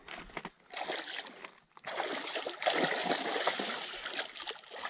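Hooked muskie thrashing in shallow water at the shore, splashing irregularly. There is a short spell of splashing, then a longer, louder one from about two seconds in.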